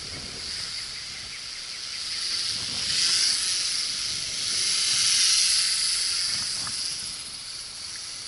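Small quadcopter's propellers and motors buzzing as a steady high hiss, swelling twice as it comes closer, about three and five seconds in, then fading.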